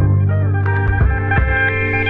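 Instrumental background music: a steady bass line under guitar notes, with drum hits coming in near the end.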